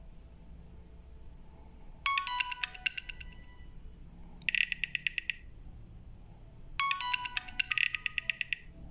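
An Alcatel OT-2005D ringtone played through a Samsung GT-B7722i phone's speaker. A short electronic phrase of quick stepped tones and a buzzy trill starts about two seconds in and comes round again near the end.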